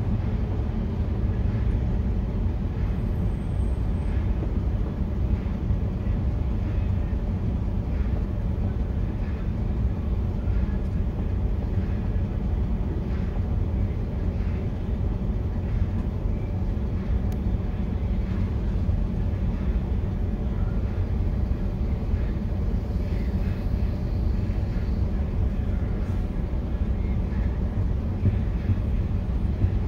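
Vehicle engine idling steadily, a constant low rumble heard from inside the cab.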